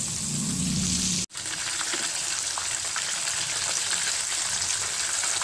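Breaded chicken pieces frying in hot oil in a pan: a steady sizzle with scattered small crackles and pops, briefly cut off about a second in.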